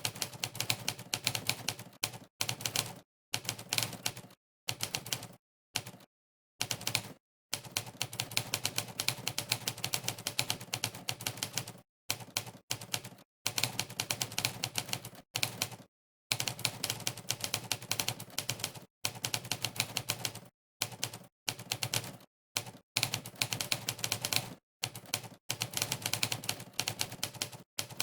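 Monkeytype's typewriter keystroke sound effect, one sampled typewriter clack per key pressed, in fast runs of typing broken by short pauses of dead silence.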